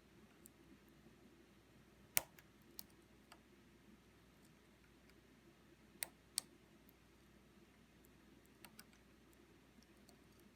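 A few sharp, irregular metallic clicks from a lock pick working the pins inside an Assa IC lock core. There is a single loud click about two seconds in, a close pair about six seconds in, and fainter ticks between them, over near silence.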